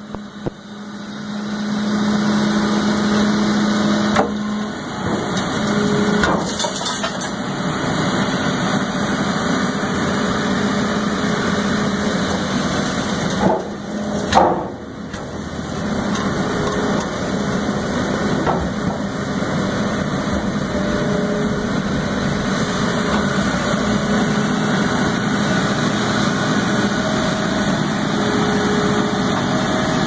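Hydraulic scrap shear baler running under load: a steady low machine hum that swells up in the first couple of seconds. Sharp metal knocks come about 4 seconds in and twice around 13 to 14 seconds as the shear cycles.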